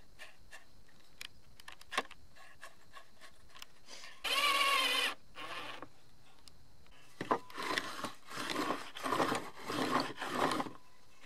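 A cordless drill-driver runs for about a second, driving a screw into a wooden block, with a short second burst just after. Then wooden blocks knock and rub together as they are picked up and handled for several seconds.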